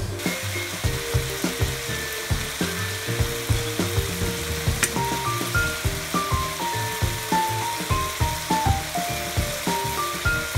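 Julienned burdock root and carrot sizzling in oil in a hot wok, with a single sharp click about five seconds in. Background music with a steady beat and a stepping melody plays over it.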